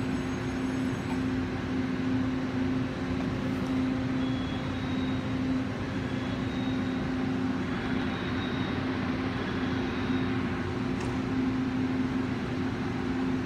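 Power car of an E1000-series push-pull Tze-Chiang express standing at an underground platform, giving off a steady low hum over a constant rushing noise.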